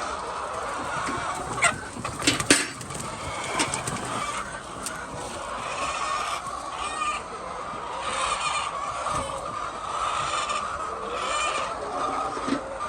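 A flock of chickens clucking steadily. A few sharp clicks or knocks come close together about two seconds in.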